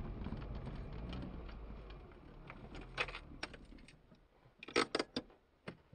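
Fiat Panda's engine running low inside the cabin, dying away over the first two seconds or so. Then a few sharp clicks and rattles come about three seconds in, and a quick cluster of them near the end.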